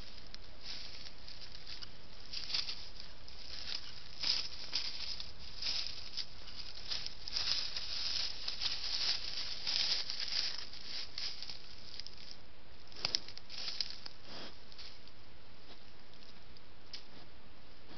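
Wild boar foraging in dry twigs and brush right at the trail camera: irregular rustling and crackling, busiest in the middle with a couple of sharp snaps later, over the recorder's steady hiss.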